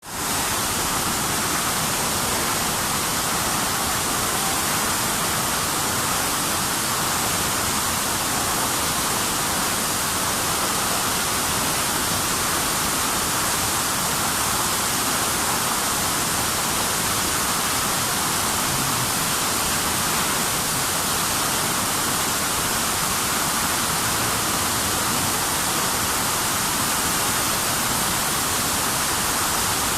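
Steady, unbroken rush of falling water from the Tamul waterfall.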